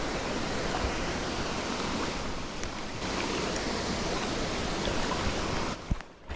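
Steady rush of fast-flowing river water, which drops away briefly near the end with a single sharp knock.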